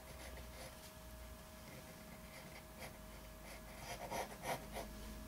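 Pen tip scratching across paper in short drawing strokes, faint, with a quick run of louder scratches about four seconds in.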